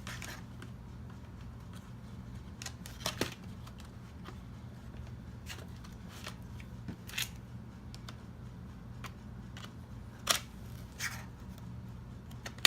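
Light, sparse clicks and taps of small plastic and metal parts being handled as a laptop's RAM module's retaining clips are released and the stick is lifted out. A few sharper clicks stand out, about 3 s, 7 s and 10 s in, over a steady low hum.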